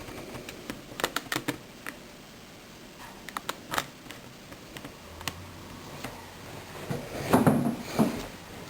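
Small hand-handling noises of a device being worked on: clusters of light clicks and taps, then a louder scrape and rustle near the end, with a faint low hum coming in about halfway.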